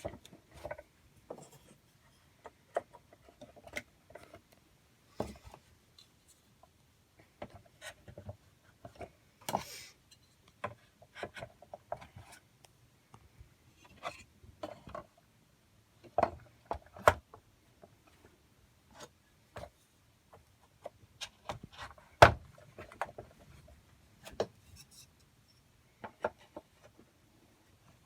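Pinewood toy train parts being fitted together by hand: irregular knocks and clicks of wood on wood, with some rubbing. The loudest knock comes a little over two-thirds of the way through.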